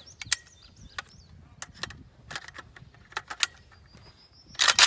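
Metallic clicks and rattles of an integrally suppressed AK-47 being handled, its magazine and action worked, ending in a louder clatter of metal near the end.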